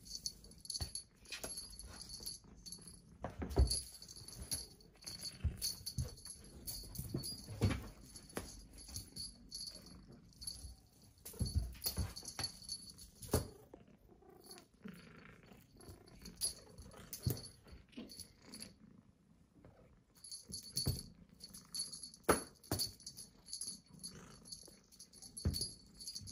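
Scattered soft knocks and rustles of a kitten pawing and pouncing at wand toys on a cloth-covered floor, with a small toy bell jingling now and then.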